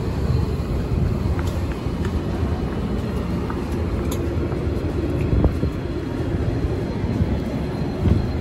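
Light-rail trolley car standing at the platform with its doors open, giving a steady low rumble and hum with a few light clicks.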